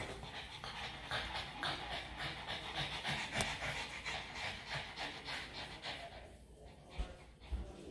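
Two pugs panting rapidly in a fast, even rhythm, a sign of nervousness while waiting for their checkup. The panting fades about six seconds in, and two low thumps come near the end.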